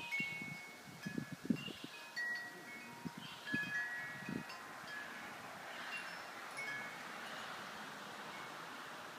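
Metal-tube wind chime ringing in the wind, several clear high notes overlapping and fading. A few low thumps come in the first half, and a windy hiss swells in the second half.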